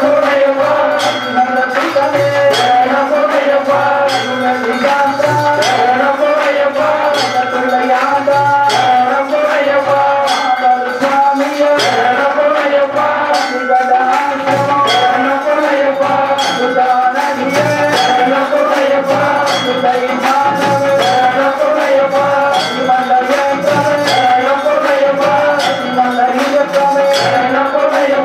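Devotional temple music: a melody over a steady beat of metallic percussion strikes and low drum-like pulses.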